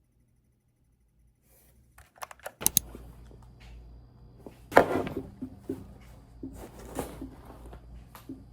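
Near silence for about a second and a half, then a quick run of sharp clicks, followed by scattered knocks and handling noises over a low hum, with one louder thump a little past the middle.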